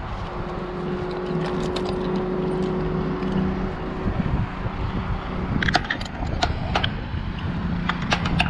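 Wind rumbling on the microphone over a steady engine-like hum. From about two-thirds of the way through there is a run of sharp metal clinks from steel hardware being handled at the insulator string.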